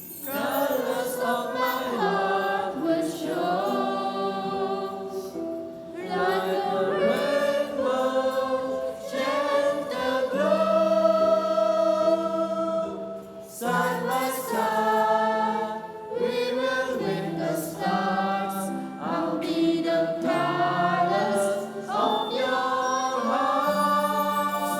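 Choral singing: several voices sing together in held phrases, with short breaks between the phrases.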